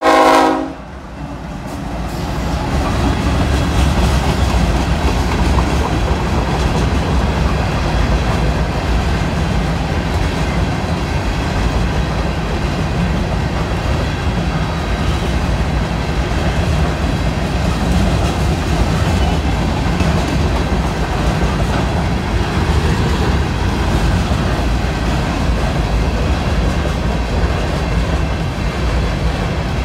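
A diesel locomotive's horn, several notes at once, sounding loudly and cutting off under a second in. Then the steady rumble and clatter of a long train of empty freight gondolas rolling past on the rails.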